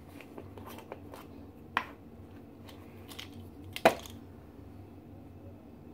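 Light clicks and knocks of plastic measuring spoons and a small glass spice jar being handled over a metal mixing bowl, with two louder sharp clacks about two and four seconds in, the second the loudest.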